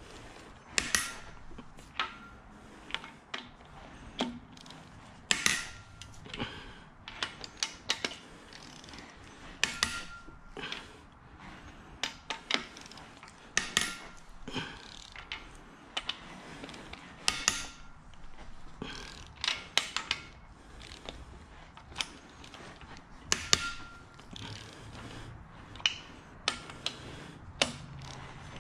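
Hand ratchet clicking, with sharp metal clicks and knocks, as cylinder head bolts (stretch bolts) are loosened a half turn at a time in sequence, outside to in. The clicks come in irregular bursts a second or a few seconds apart.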